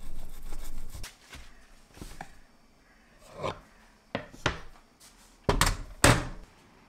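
A kitchen knife slicing through pork neck on a wooden cutting board in the first second, followed by a few light knocks and clatters, with two louder clunks near the end.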